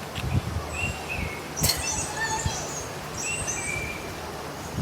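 Birds chirping in short, repeated high notes, over low thumps and rumble, with one sharp click about a third of the way in.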